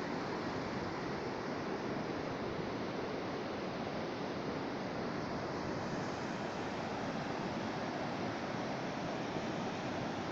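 Atlantic surf breaking and washing on the shore as a steady, unbroken rush, with no single wave crash standing out.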